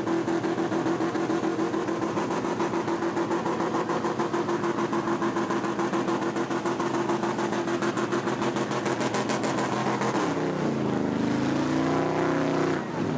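Pickup truck doing a burnout: the engine is held at high, steady revs with a rapid pulsing and a hiss of spinning tyres over it. About ten seconds in, the revs fall and waver, and the sound stops shortly before the end.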